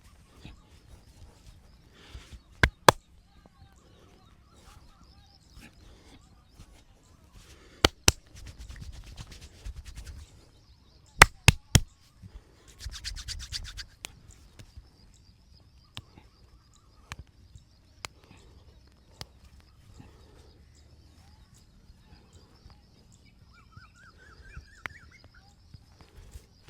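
Head massage with loud, sharp cracks of the hands on the head: two near the start, two more about eight seconds in, then three in quick succession, with spells of fast rhythmic hand strokes between them.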